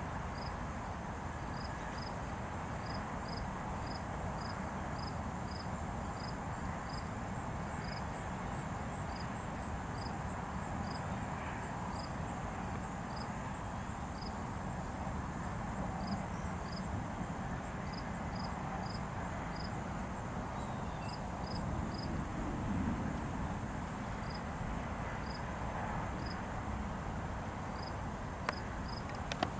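Crickets chirping: short high chirps repeating irregularly, about one or two a second, over a steady high insect trill, with a steady low rushing noise underneath.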